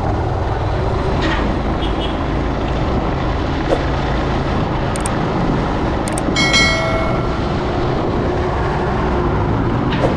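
Motorcycle riding along a wet road: steady engine, wind and road noise. A short beep of a horn sounds about six and a half seconds in.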